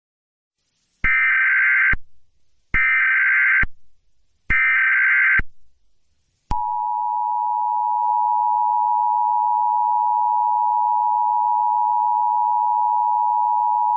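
Emergency Alert System tones: three one-second bursts of SAME header data tones, then, from about halfway through, the steady two-tone EAS attention signal.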